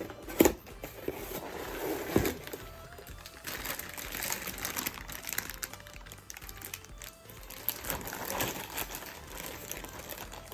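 Packaging crinkling and rustling, with many small sharp crackles, as the kit is handled and opened. Background music plays underneath.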